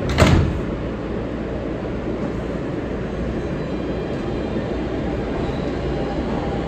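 R160B Siemens subway train running with a steady rumble of wheels and motors, with one sharp knock about a quarter second in.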